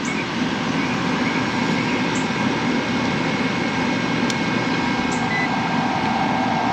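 Old outdoor air-conditioning condensing unit running steadily, compressor and condenser fan both on, working again on a newly replaced capacitor.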